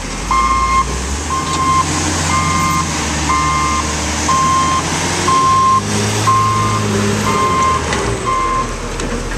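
Wheel loader's backup alarm beeping about once a second as it reverses, nine short beeps, over the machine's diesel engine running; the engine revs up briefly a little past the middle.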